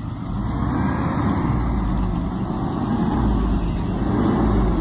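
Front-loading garbage truck's diesel engine running as the truck drives up the street, a steady low rumble that grows louder about half a second in.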